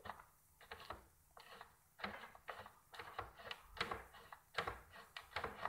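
Irregular metal clicks and knocks from the blade assembly mounting under a DeWalt DWE7480 table saw as its loosened screws are worked and the assembly is shifted to align the blade with the miter slot. The clicks come unevenly, a few to the second, and are faint.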